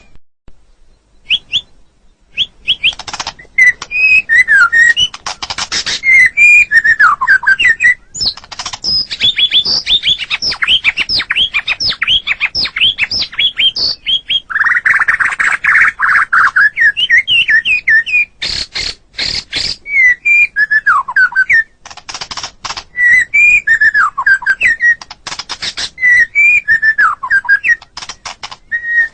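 White-rumped shama singing a long, varied song of whistled notes that slide up and down, with fast runs of short notes. About halfway through comes a harsh, buzzy phrase, and there are rattling clicks a few seconds later.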